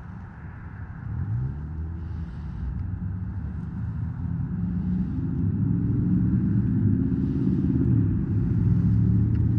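A motor vehicle engine running, its low pitch sliding up and down and growing louder from about a second in.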